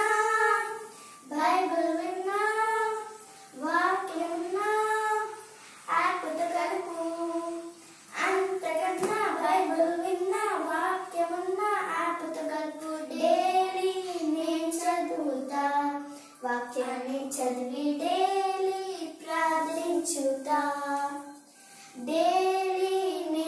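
Two young girls singing a song together with no accompaniment, in short phrases with brief pauses between them.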